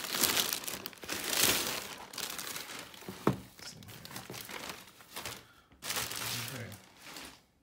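Plastic mailer bag crinkling as a shoebox is pulled out of it, with a single sharp knock about three seconds in.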